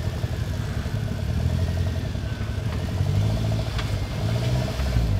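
Engine of a modified 4x4 off-road vehicle running at low revs and being revved up and down several times as it crawls over rock, with a sharp clack about two-thirds of the way through.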